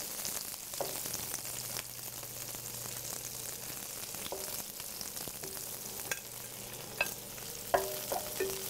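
Asparagus sizzling in oil in a frying pan, a steady hiss, with a few light clicks of metal tongs against the pan and a short run of clinks near the end.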